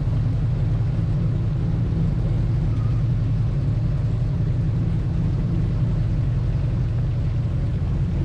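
Airboat's engine and air propeller running steadily, a constant low drone.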